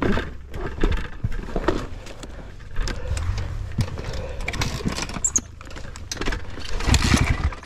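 Kawasaki KX250F dirt bike's single-cylinder four-stroke engine running with a steady low rumble, under clattering knocks and rattles from the bike being handled, and a louder noisy surge near the end.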